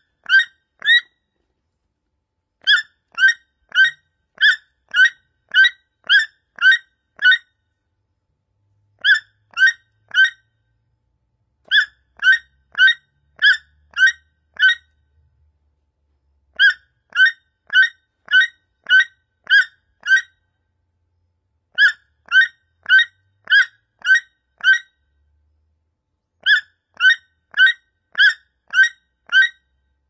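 Toucan calling: short calls repeated nearly twice a second in bouts of three to nine, with pauses of one to two seconds between bouts.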